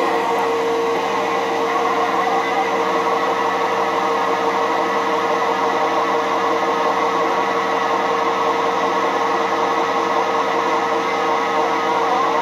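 Radio receiver's speaker giving a steady, unbroken hiss and hum with several constant tones, one stronger mid-pitched tone standing out: the sound of a strong received signal that holds the signal meter well past S9.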